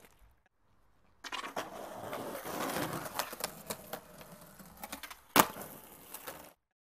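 Skateboard grinding along a ledge, a scraping rasp with many small clicks and clacks, starting suddenly just over a second in. A single loud clack as the board lands comes about five seconds in, followed by a short stretch of wheels rolling before the sound cuts off.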